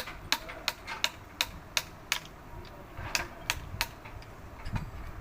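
Sharp metal-on-metal clicks in short runs, about three a second, from hand tools working on a truck gearbox, with a pause in the middle.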